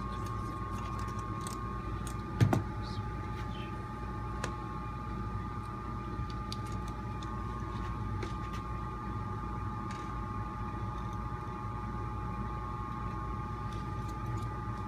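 Small clicks and taps of hand tools and plastic parts being worked on an RC crawler chassis, over a steady electrical hum. There is one louder knock about two and a half seconds in.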